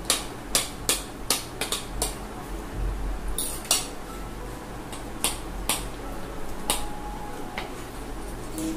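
Spoon and fork clicking and scraping against plates and plastic bowls during eating, in irregular clinks that come thickest in the first two seconds and thin out after.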